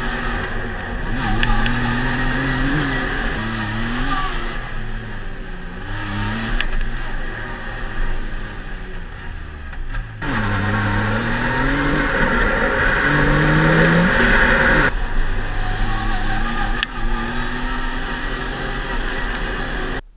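Yamaha YXZ1000R side-by-side's three-cylinder engine heard from the cab while driving a dirt trail, revving up and dropping back again and again through the gears, with a deep drop in pitch and a climb back about halfway through. Tyre and wind noise run under it.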